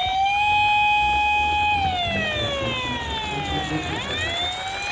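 Electronic siren of a toy emergency-vehicle minicar wailing: it rises, holds steady, falls slowly, then sweeps back up near the end. A low rumble runs underneath, from the toy rolling down its slope.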